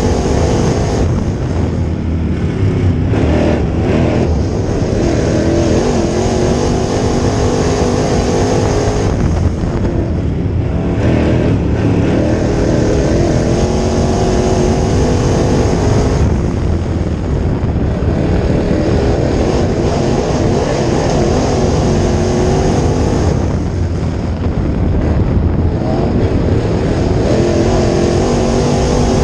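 Crate late model dirt race car's V8 engine at racing speed, heard from inside the car. The engine note drops as the driver lifts for each turn and climbs again on the straights, roughly every seven seconds.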